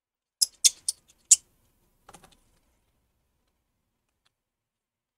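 A few sharp, small metal clicks from a precision screwdriver on the tiny side screws of an iPhone 7 screen's metal back plate: four close together in the first second and a half, then a fainter little cluster about two seconds in.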